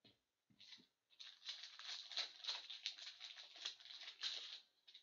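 Foil wrapper of a trading-card pack crinkling and tearing as it is ripped open by hand, with a dense, crackly rustle lasting about three and a half seconds.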